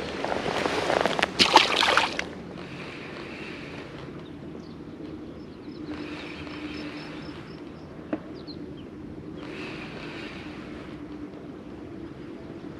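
Small waves washing against the river shore every few seconds in a light wind, after a louder rush of noise with a sharp click in the first two seconds.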